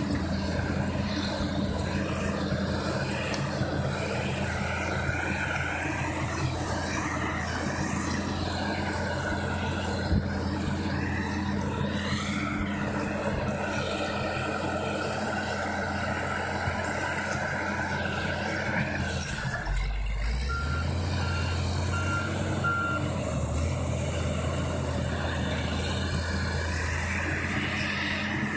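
Motor grader's diesel engine running steadily as it ploughs snow. About two-thirds of the way through the engine note drops and shifts, and a reversing alarm gives a few short beeps.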